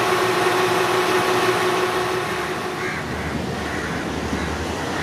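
Train running: a steady mechanical hum with a few held tones that fade out about three seconds in, leaving an even rushing noise.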